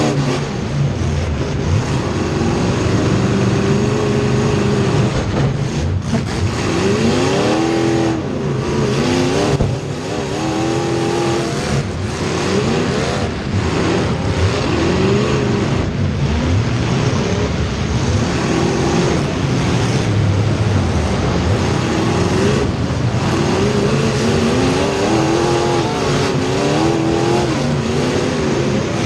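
Race car engines running hard around a track, their pitch rising and falling over and over as the cars accelerate and lift, with more than one engine heard at once.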